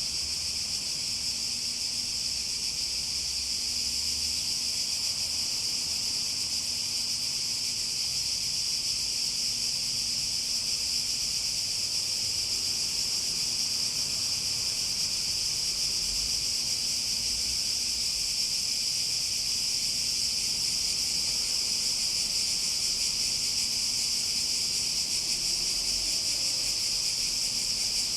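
Cicadas buzzing in a continuous chorus: a steady high-pitched drone that holds without a break.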